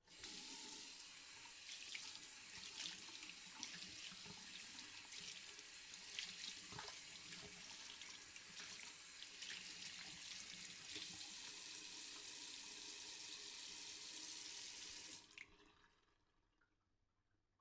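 Bathroom sink tap running with hands being washed under the stream, small irregular splashes over a steady rush of water. The water stops suddenly about fifteen seconds in as the tap is turned off.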